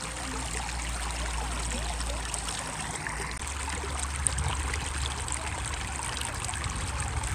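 Shallow stream running over stones with a steady trickling rush.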